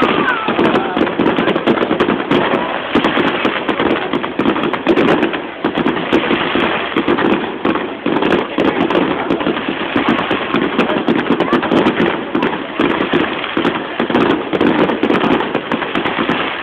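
Aerial firework shells bursting in a dense, unbroken volley: many bangs and pops every second with no pause between them.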